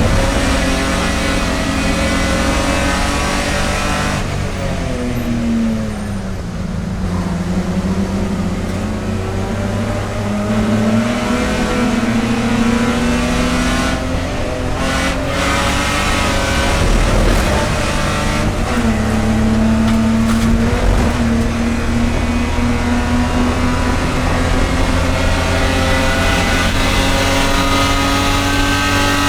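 Race car engine running hard at speed, its note dropping for a few seconds about five seconds in and then climbing back and holding high.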